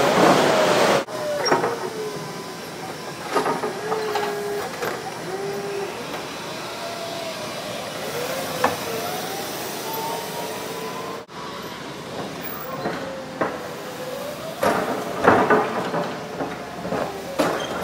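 Forklift working a hydraulic carton clamp: its motors whine in tones that rise and fall as it lifts and drives, with scattered knocks and clatter, busiest a little before the end.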